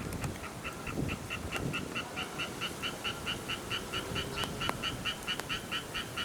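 An animal calling: a rapid, even series of short high notes, about four a second, beginning a moment in and keeping on.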